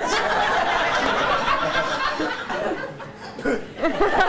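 Audience laughing: a dense burst of many voices that thins out about three seconds in, leaving a few single laughs or voices.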